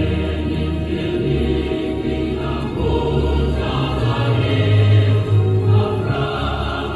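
Music of sustained, choir-like voices over deep, held bass notes that change every second or so.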